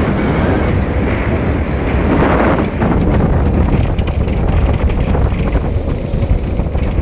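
Wind buffeting the microphone over the rumble of a pickup truck driving fast on a rough dirt track, heard from the open truck bed, with scattered knocks as it bounces.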